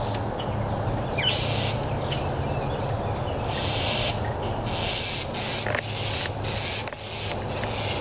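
Birds calling: a couple of brief chirps, then from about halfway a run of short, harsh rasping calls, each about half a second long, the scolding a bird gives when harassing a cat.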